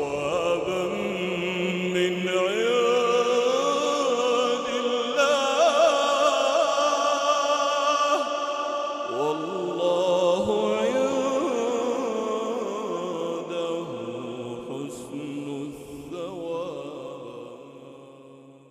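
A man's voice chanting Quran recitation, drawing the phrase out in long, ornamented held notes that glide up and down. The voice fades away over the last few seconds.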